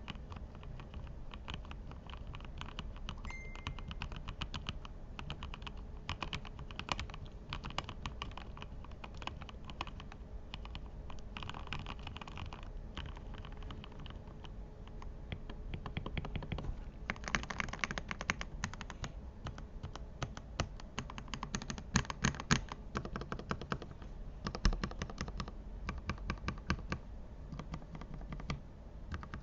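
Lubed mechanical keyboard being typed on continuously, a fast stream of key clicks that speeds up and gets louder for several seconds past the middle.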